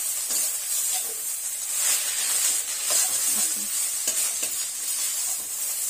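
Sliced bamboo shoots sizzling as they are stir-fried in a frying pan over a gas flame, a spatula turning them with irregular scrapes and light knocks against the pan.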